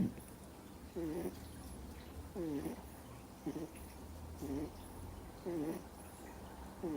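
Two-month-old miniature schnauzer puppy snoring in deep sleep: a short snore on each breath, about one a second.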